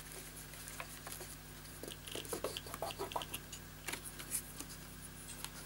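Small scattered clicks, taps and rustles of fingers handling a flat ribbon cable and pressing it down against a TV's main board and metal chassis, irregular and faint.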